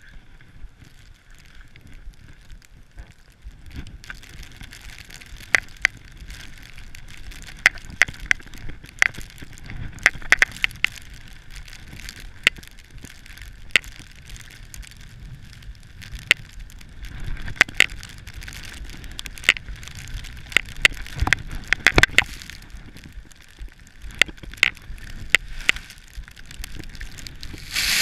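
Skis running through deep powder snow on a steep descent, a steady rushing hiss broken by many sharp clicks and knocks, with a louder rush of snow right at the end.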